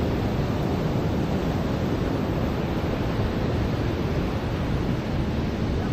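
Ocean surf washing onto a beach: a steady, low, rumbling wash of waves.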